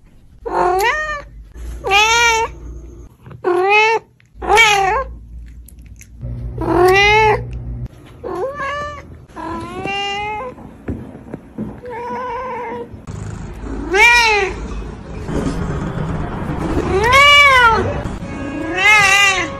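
Domestic cats meowing, about a dozen separate meows, each rising and then falling in pitch, one cat after another.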